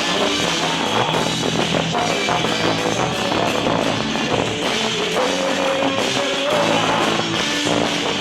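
Loud band music with drums under sustained melody notes, playing for a quadrilha junina dance.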